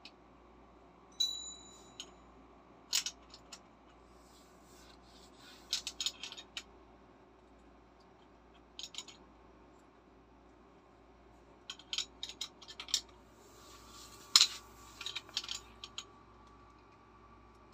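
Steel open-end wrenches clinking and scraping on the metal fittings of a paint spray gun as they are fitted and turned, in scattered short clusters. One clink rings briefly about a second in, and the loudest clank, about fourteen seconds in, leaves a short ring.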